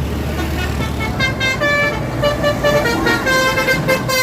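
Bus telolet horn playing a quick run of short notes that jump up and down in pitch, starting about a second in, over the low rumble of a bus engine.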